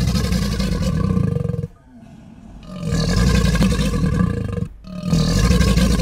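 Monster roar sound effect for a giant crocodile-like creature: three long, deep roars. A roar already underway breaks off a little under two seconds in, a second swells up and runs to about five seconds, and a third begins right after.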